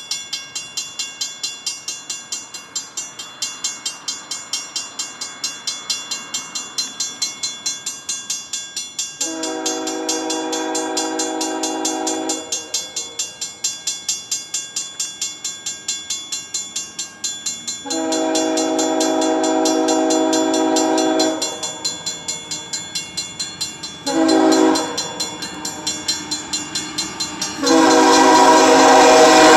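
Grade-crossing bell ringing steadily while an approaching BNSF ES44AC locomotive sounds its multi-tone air horn in the crossing pattern: long, long, short, then a final long blast. The lead unit's engine and wheels rumble in loudly under the last blast as it reaches the crossing.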